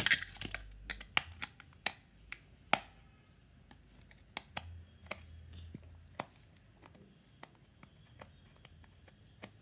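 Small screwdriver taking out the battery-cover screw of a plastic walkie-talkie: irregular sharp clicks and ticks of the tool and the plastic casing being handled, loudest and most frequent in the first three seconds, then sparser.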